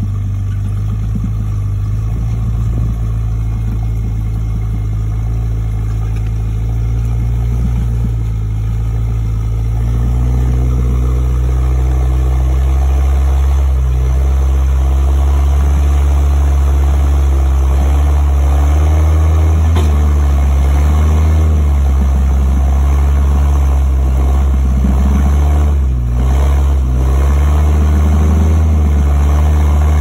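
Rock-crawler buggy's engine running at low revs while climbing a rock ledge, picking up a little about a third of the way in and briefly wavering in pitch later, with a short dip near the end.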